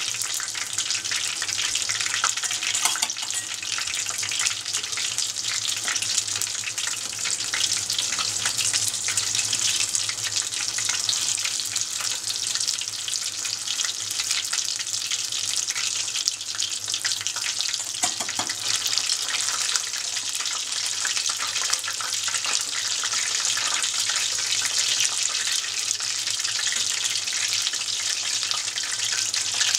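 Battered tempura pieces deep-frying in a pot of hot oil: a dense, steady crackling sizzle.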